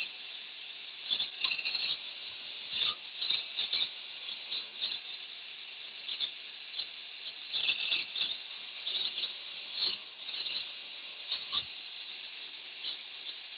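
Irregular scratchy scrubbing strokes on a rusty steel bolt as rust is cleaned off its head by hand, in uneven clusters with short pauses between them.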